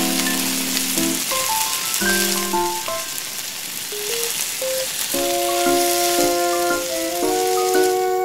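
Hot oil sizzling steadily as a batter fries in a small steel pan, with some stirring and scraping as it is turned with little tongs. A melody of held notes plays over it.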